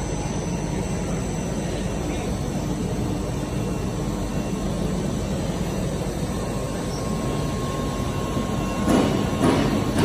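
Steady low hum and rumble of a monofilament extrusion line's machinery running, with a faint steady whine above it. Near the end, a regular thumping beat of about two strokes a second comes in.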